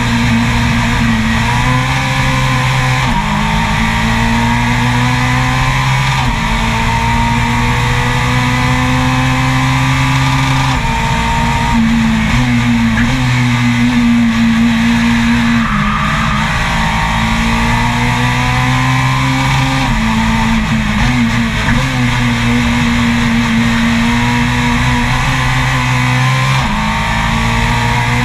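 Race car engine at full throttle heard from an onboard camera, its note climbing through the revs and dropping back sharply at each of several gear changes.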